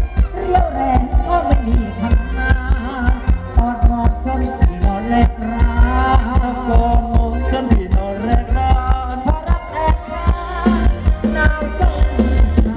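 Live Thai ramwong band music: a melody over a fast, steady drum beat.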